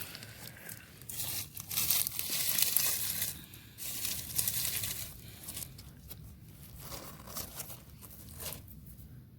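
Crackling, scraping rustle of hands digging through leaf litter and dirt, in uneven bursts that are loudest about two to three seconds in and again about four seconds in.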